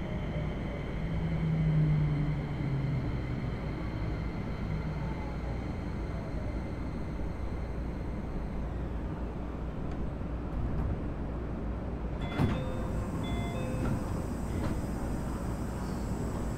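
Keio Series 5000 electric train running, heard inside the motor car: wheel and track noise under the thin whine of its Hitachi IGBT-VVVF traction inverter, whose tones slide in pitch and fade out partway through. A single sharp clunk comes about twelve seconds in.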